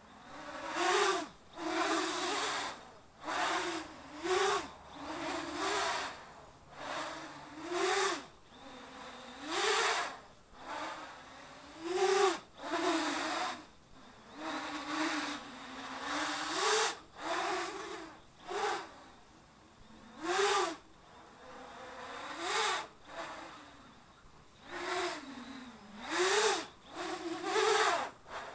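3D fixed-pitch quadcopter with Redcon 2217 2200 KV motors and 8045 propellers flying aerobatics: the motors and propellers whine in repeated loud surges of a second or so, the pitch rising and falling with each throttle punch.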